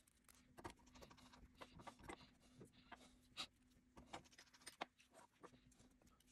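Faint scattered clicks and taps of small metal parts handled on a tabletop: a miniature steel linear rail and its carriage being set down and positioned on an aluminium extrusion, with two slightly louder taps in the middle.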